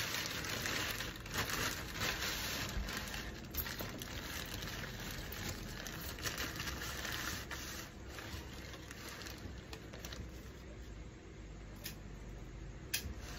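Plastic carrier bag rustling and crinkling as it is handled, with scattered sharp clicks; the rustling eases off after about eight seconds, and two sharp clicks come near the end.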